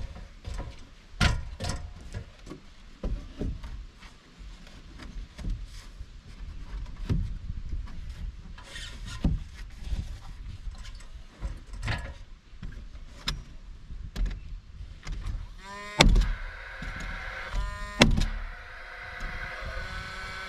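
Irregular knocks and clatter of building work on a wooden shed, with two hard bangs near the end followed by a steady whine.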